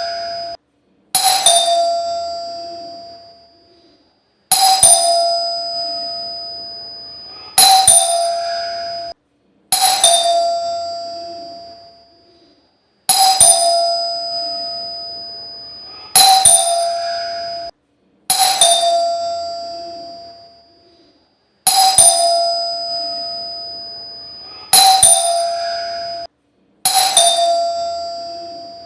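A calling bell rings about ten times, one strike every two to three seconds. Each ring is a clear metallic tone that fades away, and a few are cut off short before they die out.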